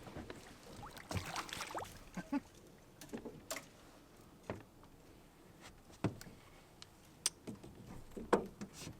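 Irregular light knocks and clicks of gear and handling in a boat, a few sharper taps among them.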